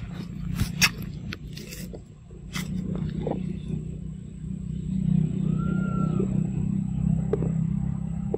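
A low, steady engine rumble that builds about two and a half seconds in and holds to the end, with a few sharp clicks before it and a short chirp just past the middle.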